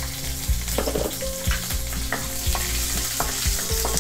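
Chopped garlic, green chillies and dal sizzling in hot oil in a kadai as the garlic starts to fry, with a wooden spatula stirring and scattered taps against the pan.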